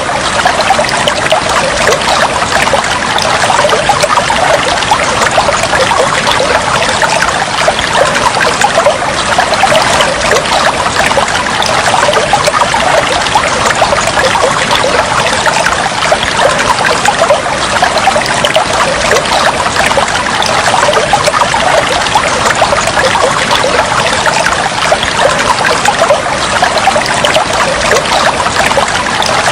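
Water flowing and trickling steadily, a continuous dense babble without a break.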